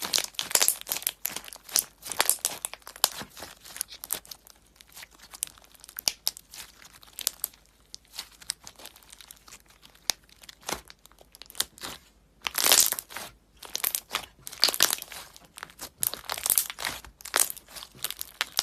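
Slime being squeezed and poked by hand, giving a dense run of crisp crackling and popping clicks that grow loudest about two-thirds of the way through.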